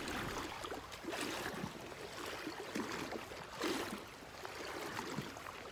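Water splashing and sloshing around legs wading upstream through a shallow creek, in uneven surges about once a second over the creek's steady running water.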